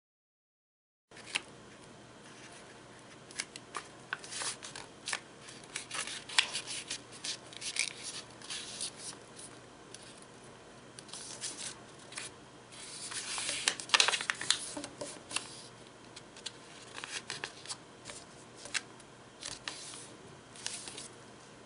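A sheet of origami paper being folded and creased by hand: crinkling and rustling, with many short, sharp crackles. It starts about a second in and is loudest in a stretch a little past the middle.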